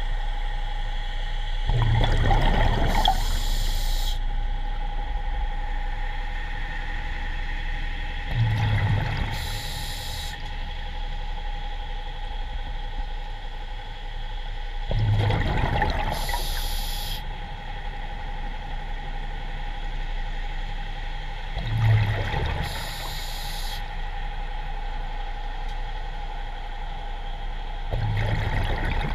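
A scuba diver breathing through a regulator underwater: a breath about every six to seven seconds, each a bubbling rumble followed by a hiss. A steady hum runs underneath.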